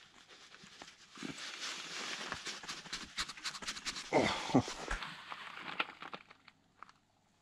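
A person breathing heavily as he strains, with a louder exhalation about four seconds in, mixed with small clicks and knocks of a hand tool on the metal transmission housing; it dies away near the end.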